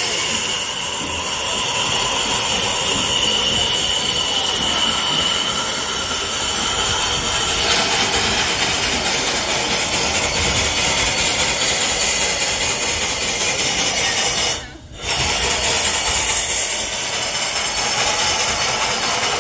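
Steady steam hiss from an Italian FS 730/740-family steam locomotive standing on a turntable. The hiss cuts out briefly about 15 seconds in, then resumes.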